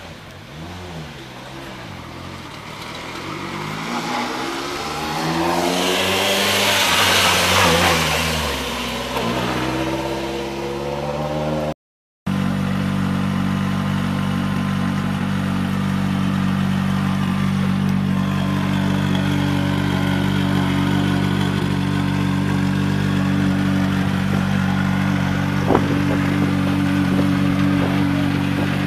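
A rally car engine rising and falling in revs as it drives past, loudest about halfway through, with a rush of hiss. After a cut, a Hyundai i20 rally car's engine idles steadily, with a single sharp click near the end.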